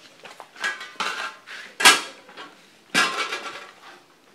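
Metal cooking pot and lid clattering as they are handled: several knocks with a short metallic ring, the loudest a little under two seconds in.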